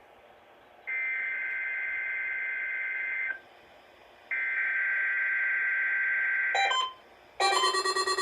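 Emergency Alert System SAME header data tones: two bursts of digital data tones, each about two and a half seconds long and a second apart, opening a Required Weekly Test. Shortly before the end, music starts.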